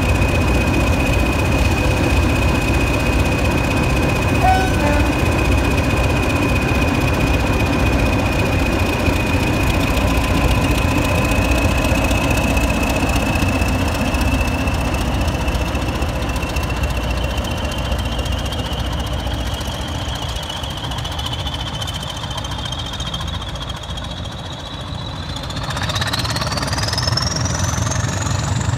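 Two Class 20 diesel locomotives, each with an English Electric eight-cylinder turbocharged engine, rumbling past slowly with a high, steady turbocharger whistle over the engine note. About 25 seconds in, the whistle climbs sharply in pitch and the engine sound swells as the locomotives are opened up and pull away.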